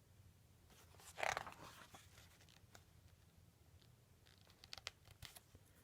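Near silence: quiet room tone with one brief rustle about a second in and a few faint clicks near the end.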